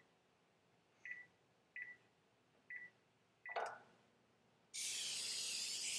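Electronic oven control panel beeping as its keys are pressed, five short single-pitch beeps, as when the bake temperature is keyed in. A click follows, then a steady hiss starts about three-quarters of the way through.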